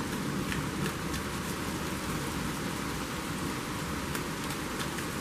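Heavy rain pouring, heard through an open window: a steady hiss with scattered ticks of drops.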